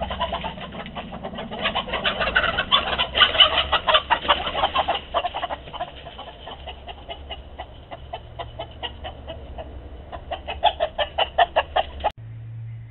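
Backyard hens clucking in a rapid, loud run of short calls. The calls swell for the first few seconds, ease off, build again near the end, then stop abruptly.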